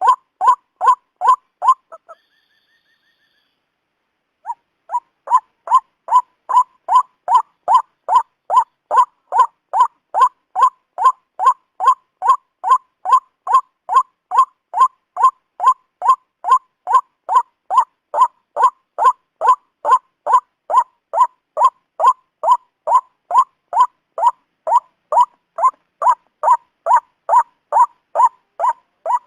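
White-breasted waterhen (ruak-ruak) calling: a short note repeated fast and evenly, about two a second. The calling pauses for about two seconds near the start, then runs on without a break.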